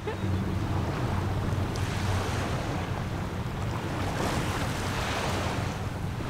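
Sea water washing gently against the shore, with a steady wind rumble on the microphone.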